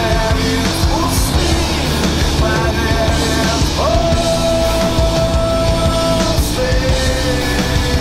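Loud rock music soundtrack with pounding drums and held lead notes; one note bends up about four seconds in and is held for over two seconds.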